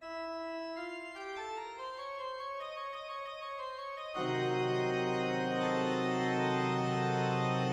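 Organ music: single held notes stepping upward for about four seconds, then a full chord with a deep bass comes in and is held.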